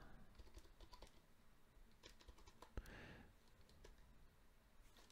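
Faint keystrokes on a computer keyboard as a short terminal command is typed. There is a scatter of separate clicks, with one louder click a little before three seconds in.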